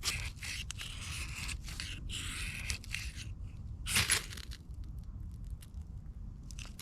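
Birch bark and kindling being handled for a fire lay: scratchy tearing and scraping for about three seconds, then one louder short scrape about four seconds in, followed by faint light ticks.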